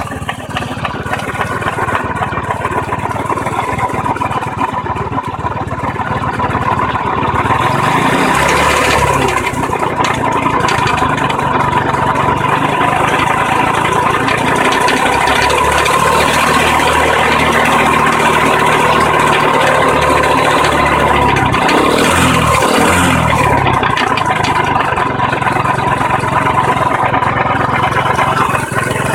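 An engine running with a knocking or grinding noise, revved up and back down about a third of the way in and again later. The owner places the noise more on the clutch side.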